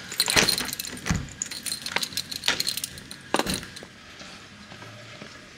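A bunch of keys jangling and clinking while a key is worked in a door's deadbolt lock: a quick series of sharp metallic clicks over the first three and a half seconds, with a low thump about a second in.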